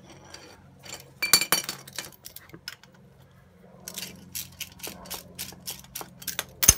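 Metal tools clinking, then a ratchet wrench clicking in quick strokes on the fitting at the bottom of a coil-spring strut. It ends with one sharp metallic knock.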